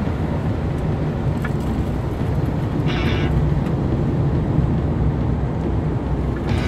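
Steady low engine and tyre rumble inside the cabin of a moving van, with a brief higher pitched sound about three seconds in.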